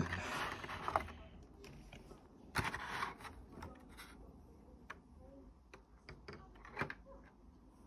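Clear plastic clamshell packaging crinkling and clicking as it is handled and pried open, in a few bursts: one at the start, another about three seconds in, a short one near the end, with small clicks between.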